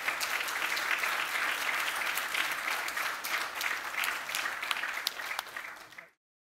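Audience applauding, a dense even patter of many hands clapping, fading away near the end and then cutting off to silence.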